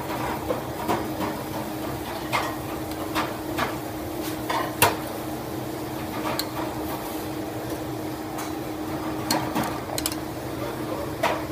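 A metal spoon clinking and scraping against a ceramic bowl as sauce is spooned out, giving scattered sharp clicks, the loudest about five seconds in, over a steady low hum.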